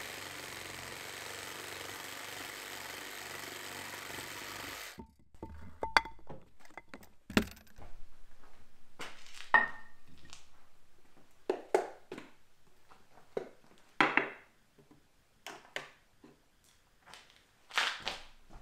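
A power tool running steadily, cutting off suddenly about five seconds in. After that come scattered clinks and knocks of kitchenware, a few of them ringing briefly.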